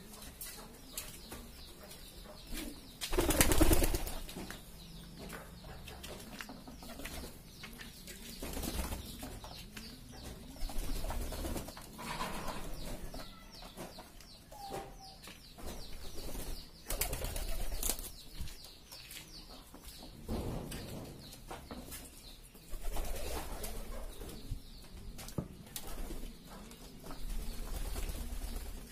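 A flock of domestic pigeons cooing, with wings flapping now and then and many small clicks of beaks pecking grain off a concrete floor.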